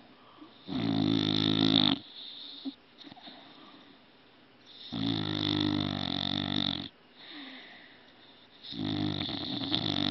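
A sleeping pet snoring: three long, loud rattling snores about four seconds apart, each followed by a shorter, softer breath.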